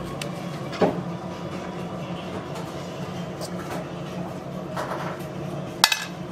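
Steady low mechanical hum, with a sharp knock about a second in and a louder one near the end.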